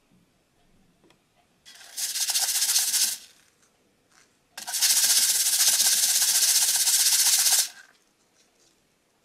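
Dry candy granules from a DIY candy kit being poured onto a plastic tray, a dense rattling patter of many small grains. It comes twice: a short pour about two seconds in, then a longer one of about three seconds.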